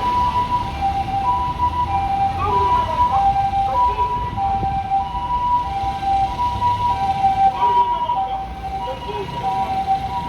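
Japanese ambulance siren on an emergency run, steadily alternating between a higher and a lower note, each held for a little over half a second, over low traffic rumble.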